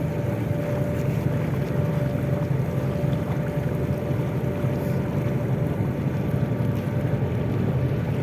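A boat's engine running at a steady drone, with wind buffeting the microphone.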